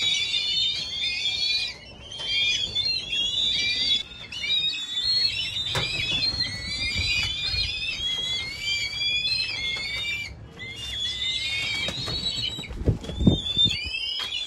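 Many small birds chirping and twittering at once, with non-stop overlapping high calls. A couple of dull thumps sound near the end.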